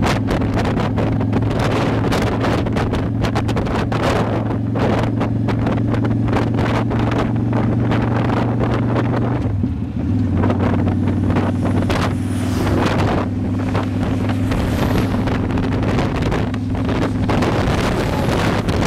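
Motorcycle engine running at a steady cruise under heavy wind buffeting on the microphone; the engine note drops slightly for a moment about ten seconds in.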